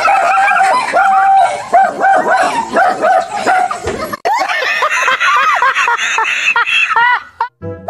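A dog barking over and over in quick, high barks, about three a second, for roughly four seconds; then, after a brief break, people laughing hard.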